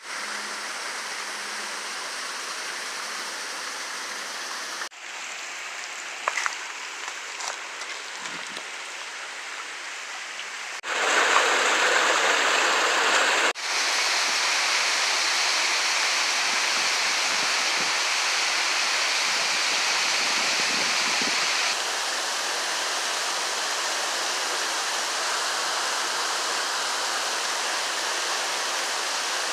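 River water rushing steadily. The level changes abruptly several times, where separate takes are joined.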